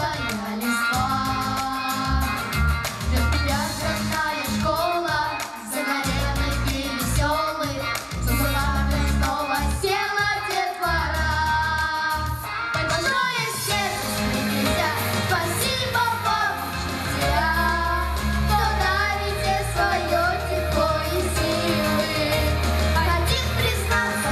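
Children singing into handheld microphones over backing music with a steady bass line.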